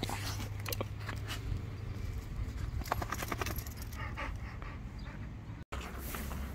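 Irregular footsteps crunching and clicking on gravel as a Labradoodle and its walker move about. The sound cuts out for an instant near the end.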